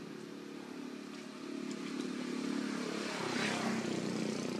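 A motor engine droning steadily nearby, growing louder and peaking about three seconds in.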